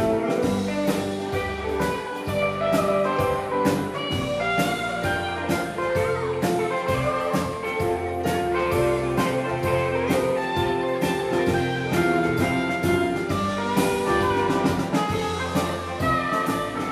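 Live rock band playing with two electric guitars, electric bass, keyboards and drum kit, in an instrumental passage with a steady beat and no singing.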